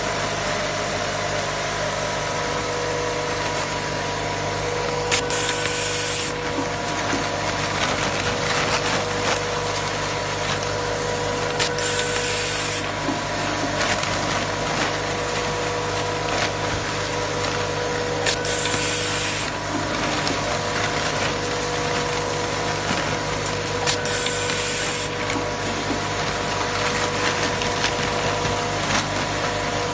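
Automatic cable tie machine running: the vibratory bowl feeder hums steadily, and about every six and a half seconds a click is followed by a hiss of compressed air lasting about a second, as a tie is blown through the feed hose to the tying head.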